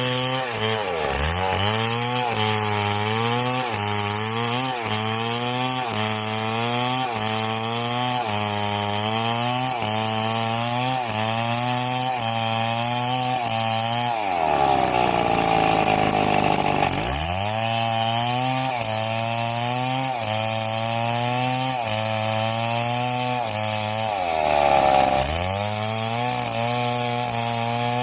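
Chainsaw running and cutting wood, its engine pitch wavering about once a second. Three times the pitch drags down deeply as the chain bogs in the cut and then recovers, the longest for about two seconds around halfway.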